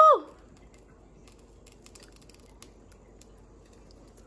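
A woman's short excited "woo!" with a rising then falling pitch right at the start, followed by faint scattered light clicks and ticks over a low background hiss.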